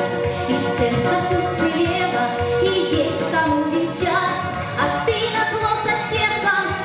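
Music: a pop-style song with a sung vocal line over instrumental backing.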